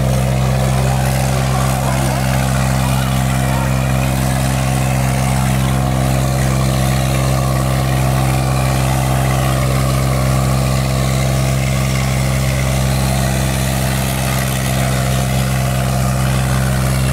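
Sonalika 50 tractor's diesel engine running hard at a steady, unchanging speed while pulling a harrow weighted with sacks; the heavy black exhaust smoke shows it labouring under full load.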